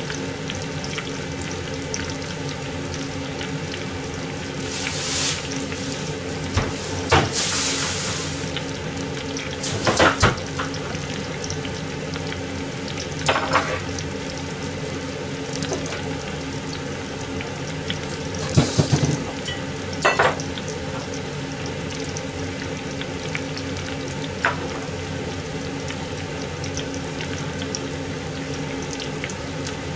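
Hot oil deep-frying in a pot, sizzling steadily. A handful of short knocks come through it, and the hiss swells louder twice, about five and seven seconds in.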